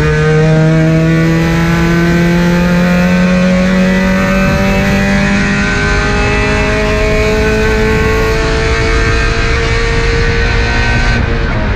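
Car engine pulling hard on a racetrack, its pitch climbing slowly and steadily for about eleven seconds, then dropping sharply near the end. Road and wind noise run underneath.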